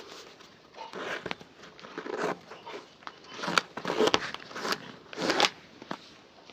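Handwork on a shoe: a series of brisk rubbing and brushing strokes about a second apart, with small clicks and taps between them.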